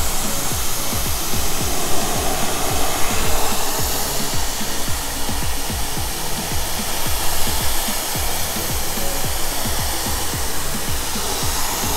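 Pressure-washer spray, a steady hiss of water from a green-tipped nozzle hitting a car's side panel, with an uneven low rumble underneath.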